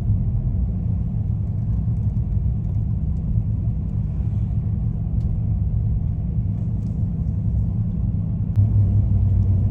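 Car interior road and engine noise while driving: a steady low rumble. It gets louder about eight and a half seconds in, with a faint click.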